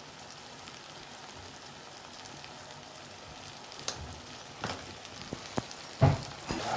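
Onion-tomato masala frying in hot oil in a kadhai, a steady sizzle. In the second half come a few sharp clicks and crackles, with a louder thump about six seconds in.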